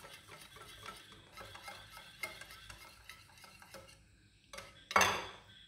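Wire whisk beating a flour-and-jaggery batter in a ceramic bowl, its wires clicking rapidly against the bowl as lumps are beaten out. The whisking stops about four seconds in, and a single louder clink sounds near the end.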